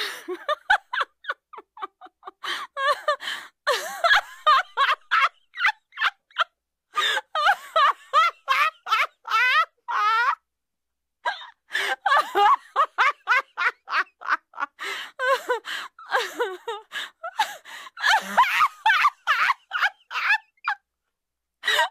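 High-pitched laughter in rapid short bursts, breaking off briefly about ten seconds in and again near the end.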